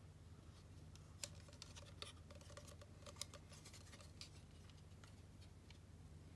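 A few faint, sharp clicks of hard plastic toy parts being handled as the round head of a toy figure is pulled off its body, over near silence.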